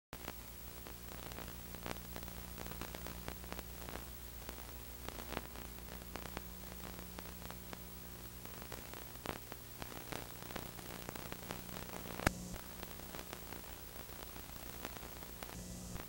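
Steady hiss and low mains hum from VHS tape playback, with scattered faint clicks and crackles and one sharper click about twelve seconds in; no music or voice.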